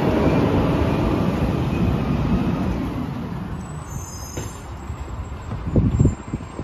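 Diesel engine of a Peterbilt 567 garbage truck running as the truck pulls away, its low rumble fading over the first few seconds. A couple of short low thumps come near the end.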